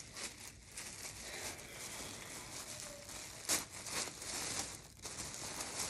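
Tissue paper rustling and crinkling as a wrapped package is unwrapped by hand, with a sharper crackle about halfway through.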